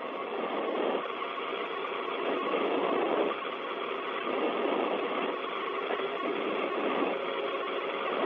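Static hiss from an open, narrow-band air-to-ground radio channel, steady but swelling and dipping unevenly every second or so.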